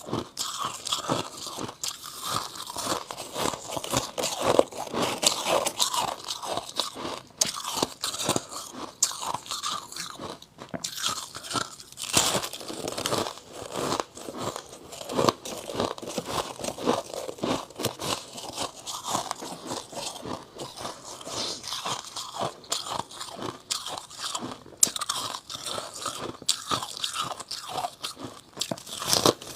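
Close-miked chewing of frost ice chunks: dense, irregular crunching and crackling as the ice is bitten and ground between the teeth.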